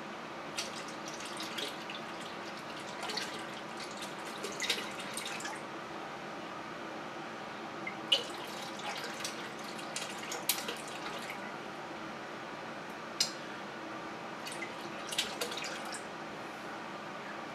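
Yeast starter slurry poured from a glass jug into a plastic fermenting bucket of beer, pitching the yeast: liquid splashing and dripping in irregular bursts, with a couple of sharp clicks.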